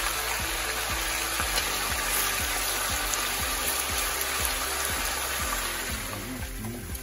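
Pork tocino slices sizzling and bubbling in liquid in a nonstick frying pan, the hiss thinning about six seconds in. Background music with a steady beat plays under it.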